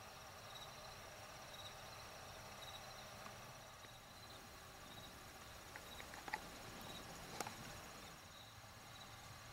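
Faint insect chorus in the field: a steady high trill with a chirp repeating about once a second. A few small clicks come about six seconds in, and a sharper tick follows a second later.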